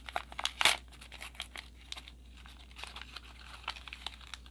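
Small plastic packaging crinkling and tearing as it is handled and opened, with a loud flurry of crackles in the first second, then scattered crinkles.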